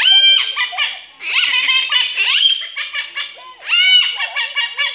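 Green pet parrot calling loudly in fast, high-pitched runs of chattering calls, in three bursts with short breaks about a second in and again about three and a half seconds in.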